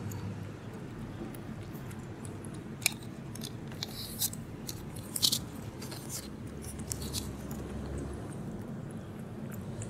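A cat lapping milk from a plastic bowl: irregular small wet clicks and laps, busiest and loudest in the middle, over a steady low outdoor rumble.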